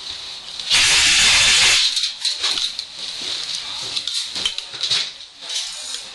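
Wind buffeting the microphone in a loud gust lasting about a second, starting just under a second in, then a steady hiss with scattered crackling and rustling.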